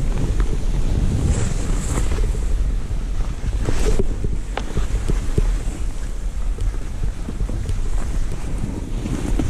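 Skis hissing and swishing through soft snow, with wind rumbling over the microphone and a few sharp knocks along the way.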